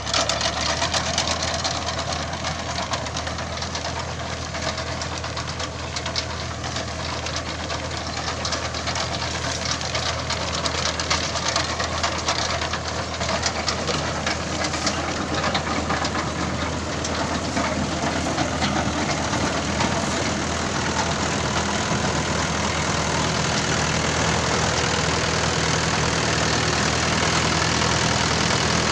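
Mahindra 415 tractor's diesel engine running steadily while pulling a potato harvester. A dense rattle of fine clicks sits over the low drone of the engine.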